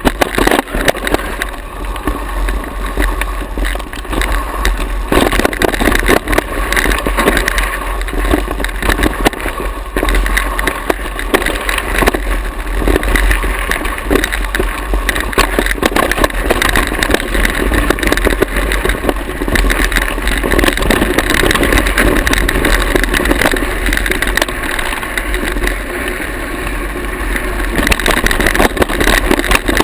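Mountain bike riding down a rough dirt and rock trail: wind rumbling on the rider's action-camera microphone, with rattling and knocks from the bike and its tyres over the rough ground.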